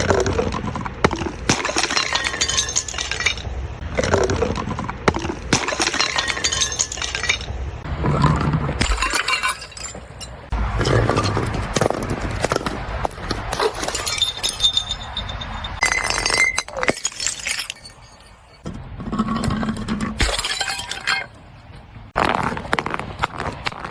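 Glass bottles being broken and crushed: a run of shattering crashes and crunching, with glass shards clinking and brief ringing. The sound changes abruptly every few seconds from one bout of breaking to the next.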